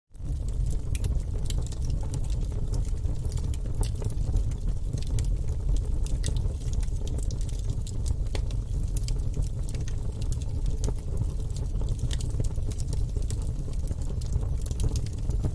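Wood fire burning in a fireplace: many irregular sharp snaps and crackles from the logs over a steady low rumble of the flames.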